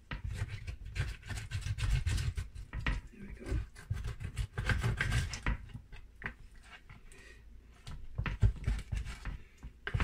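Serrated kitchen knife sawing through marinated ribs on a bamboo cutting board: quick rasping strokes with knocks of the blade and meat on the wood. The sawing eases off a little past halfway, then picks up again near the end.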